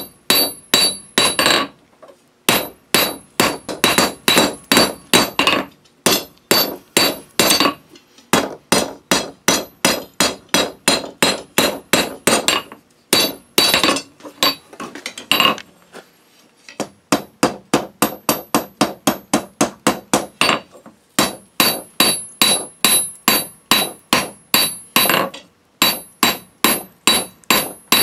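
Hand hammer striking red-hot steel on an anvil, a run of blows at about three to four a second, broken by short pauses. Each blow has a high, bright ring from the anvil.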